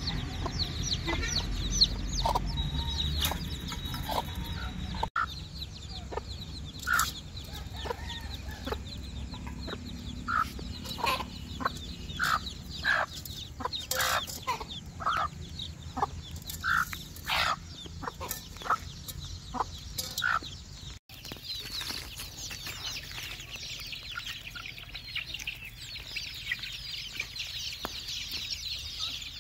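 Mother hens clucking among a brood of chicks that cheep without pause. Through the middle the hen's short clucks come one at a time, about one a second. Near the end they give way to dense high cheeping from many chicks.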